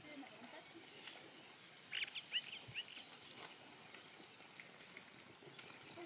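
Faint background hiss, broken about two seconds in by a quick run of five or six high, sharp bird chirps.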